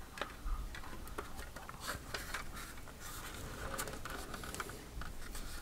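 Plastic halves of a 1/48 scale B-17G model fuselage being pressed and shifted against each other by hand: faint scattered clicks and scraping of plastic on plastic as the halves are test-fitted.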